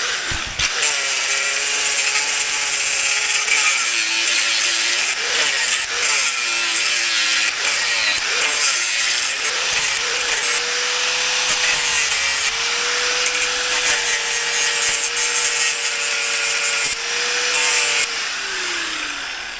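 Angle grinder cutting through a nut welded onto the excavator arm's pivot bolt: a steady loud grinding hiss with a motor whine that dips and wavers under load. Near the end the motor spins down with a falling whine.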